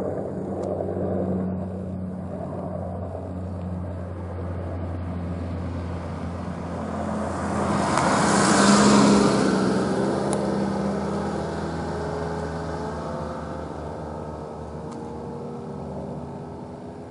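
Two-bladed helicopter flying past overhead: its rotor and engine sound swells to a peak about halfway through as it passes closest, then fades steadily as it flies away.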